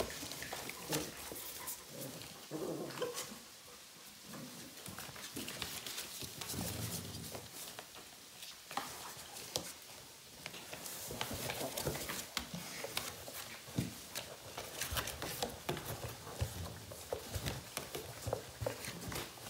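Puppies scrabbling at, chewing and rustling a cardboard box they are playing in: a run of scratchy crinkles and clicks, busier in the second half, with a few short puppy vocal sounds early on.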